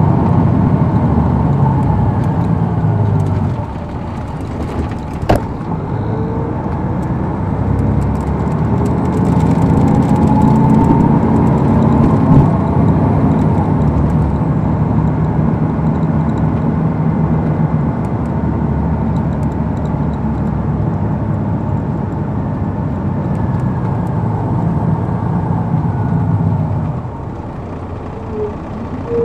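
The Detroit Diesel Series 60 engine of an MCI D4000 coach bus, heard from on board, pulling the bus under load. It eases off about three and a half seconds in, then builds again with a rising whine, runs steadily, and drops back near the end. A single sharp click sounds about five seconds in.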